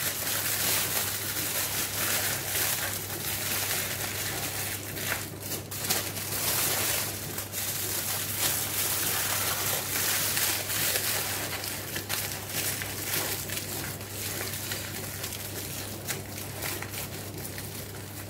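Aluminium foil crinkling and crackling irregularly as it is folded, crimped and pressed shut by hand over a baking tray to seal it tight.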